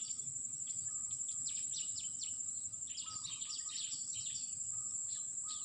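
Field ambience: a steady high-pitched insect drone, with many short bird chirps over it, busier in the second half.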